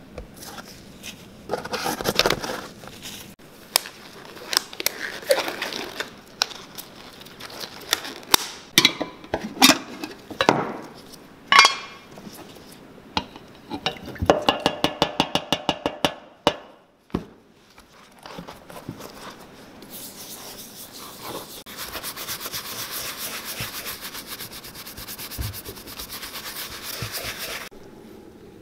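Hand-work sounds of stripping and re-dyeing leather boot uppers: scattered clicks and knocks, then a quick run of taps from a dauber brush working in a metal dye tin. Near the end comes several seconds of steady brisk rubbing that stops suddenly.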